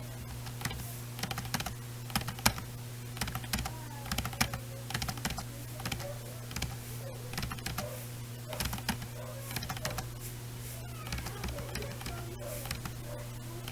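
Computer keyboard typing: irregular runs of keystroke clicks with short pauses between them, over a steady low hum.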